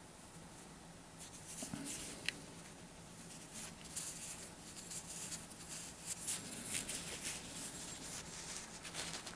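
Cotton-gloved fingers rubbing and shifting against a silver coin as it is turned over, a soft, irregular scratchy brushing that starts about a second in, with one sharper tick a little after two seconds.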